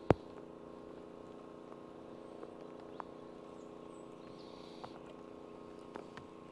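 A steady machine hum made of several even tones, with one sharp click just after the start and a few faint ticks scattered through.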